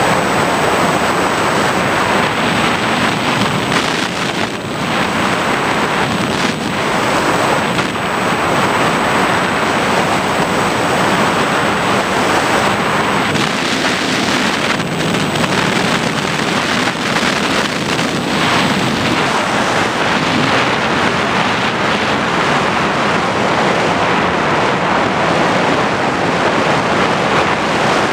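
Loud, steady wind rush buffeting the onboard camera microphone of an FPV model aircraft in flight, with a faint high steady tone that stops about two-thirds of the way through.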